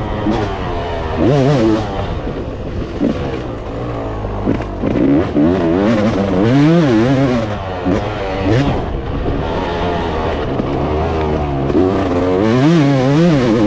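Dirt bike engine heard from the rider's own bike, revving up and dropping back repeatedly as the rider accelerates out of turns and backs off into them. The rises are strongest about a second in, around the middle, and again near the end.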